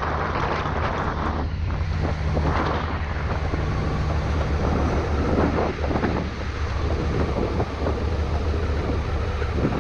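Honda Africa Twin adventure motorcycle engine running steadily, under heavy wind buffeting on the microphone.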